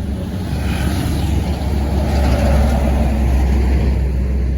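Tour bus engine running as the bus passes close by, a low rumble with a rush of tyre and engine noise that grows louder to a peak about halfway through and then eases.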